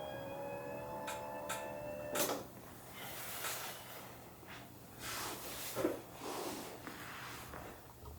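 Handling sounds of a patient being positioned on a treatment table for a sacral adjustment: a few sharp clicks about one, one and a half and two seconds in, then soft rustling. A steady faint tone sounds under the first two seconds.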